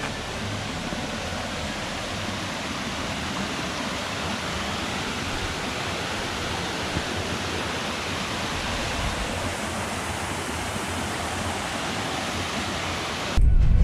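Steady, even rush of water from a waterfall or cascading mountain stream. Loud music cuts in abruptly near the end.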